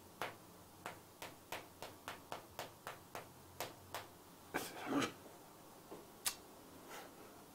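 Chalk tapping and clicking against a chalkboard as an equation is written: a quick run of sharp taps, two to three a second, for about four seconds, then a few scattered clicks.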